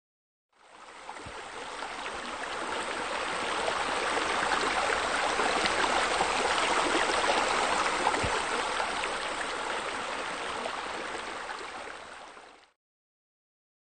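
Running water, a steady rushing wash with no tune or beat. It fades in about half a second in and fades out near the end.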